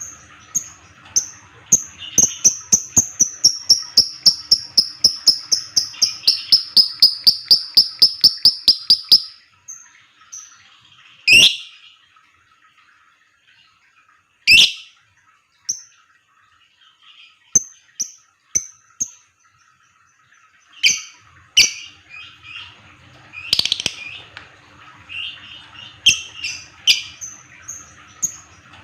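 A lovebird making its rapid 'ngetik' call, a fast typing-like train of short high chirps at about five a second for some seven seconds. After a pause come two loud sharp shrieks and scattered chirps, and another fast run starts near the end.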